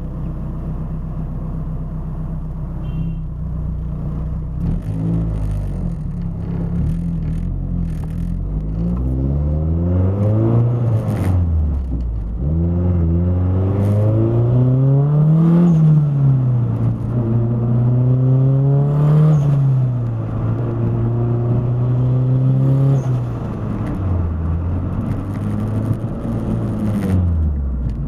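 Turbocharged car engine with a Garrett GT35R turbo accelerating under boost, the revs climbing and dropping back several times. The owner reports an unexplained weird noise when the engine is on boost.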